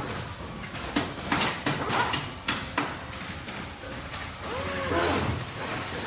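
Small-factory workshop sounds over a low machine hum: a run of sharp metal knocks and clatters in quick succession in the first half, then a short squeal that rises and falls near the end.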